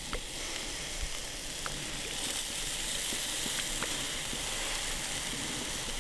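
Steak sizzling: a steady hiss with scattered small pops.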